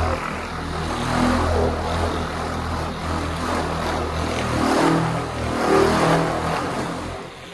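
Electric paint polisher running, its pad buffing compound on a car's painted bodywork; the motor drone swells and eases as it is worked, then winds down about seven seconds in as the buffer is switched off.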